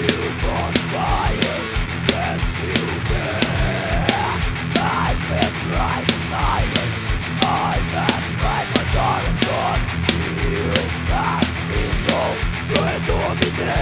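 Death-thrash metal song: distorted electric guitars over bass and a fast, steady drum beat, loud throughout.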